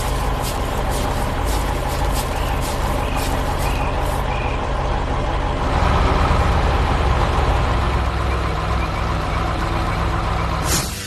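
Heavy diesel engine of a construction vehicle running steadily, with a string of clicks over the first few seconds. A little past halfway it gets louder and deeper, as if revving under load, then cuts off at the very end.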